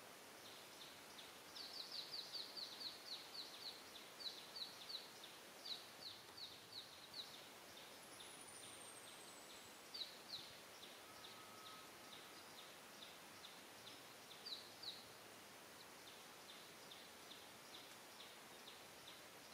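Faint outdoor quiet with a small bird repeatedly giving short high chirps, about three a second, strongest in the first few seconds and in brief clusters later.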